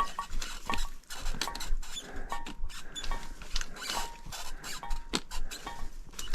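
Footsteps of a hiker carrying a heavy backpack, crunching along at a walking pace, with a short squeak from the pack or its straps at many of the steps.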